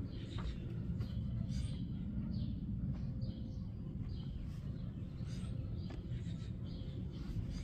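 Birds chirping over a steady low rumble, with a few light clicks.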